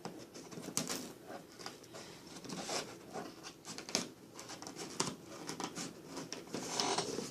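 Cardboard box being opened and its packing handled: irregular crackling, scraping and rustling, with a denser run of rustling near the end.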